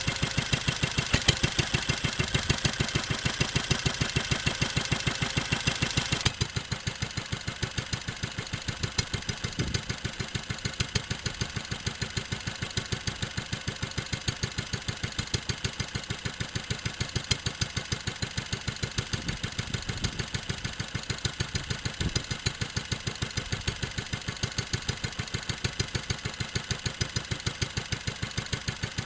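Wolseley WD 8 single-cylinder side-valve petrol stationary engine running steadily with an even, quick beat, running on after its fuel has been turned off. About six seconds in, the sound gets quieter and less hissy.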